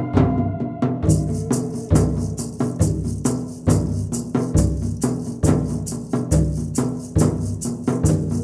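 Instrumental background music: a low drum beat a little under once a second over a held bass line, with a quick rattling, shaker-like percussion joining about a second in.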